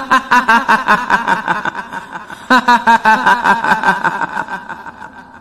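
A woman's cackling 'hihihi' laugh, the kuntilanak ghost's laugh, in two rapid runs of short pulses, each trailing off.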